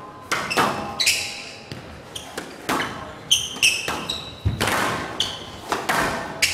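Squash rally: the ball struck by rackets and hitting the walls in a run of sharp cracks, two to three a second, each with a short echo, mixed with brief high-pitched squeaks of court shoes on the floor.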